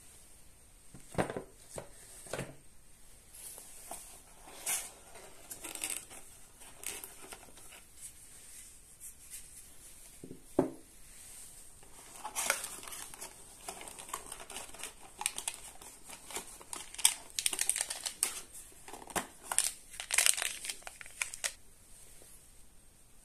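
Paper and cardboard packaging of a Samsung tablet box being handled: irregular rustling and crinkling of the paper sleeve and cardboard inserts, with a few soft knocks early on and one near the middle, and denser rustling through the second half.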